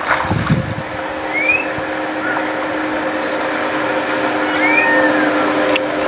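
Outdoor ambience: a steady rushing noise with a low hum underneath, a brief low rumble at the start, and two or three short rising bird chirps, one at about a second and a half and another near five seconds.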